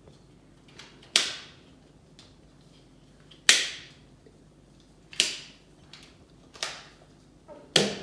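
Five sharp, loud snaps from a small handheld fidget toy being worked in the hands, spaced unevenly one to two seconds apart, each dying away quickly.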